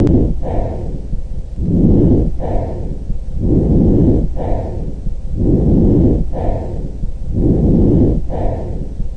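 A person's breath sounds: a steady cycle of in-breaths and out-breaths, each lasting about a second with a brief pause between, repeating about four times over.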